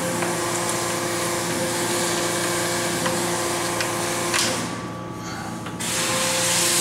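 Steady mechanical hum with a whine and a hiss, with a few light clicks as the outboard motor's fittings are handled; about four and a half seconds in the hiss drops away for over a second, then comes back.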